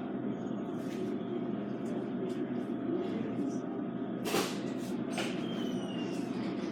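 Steady background hum of a hospital room with faint distant voices, and a single sharp click about four seconds in.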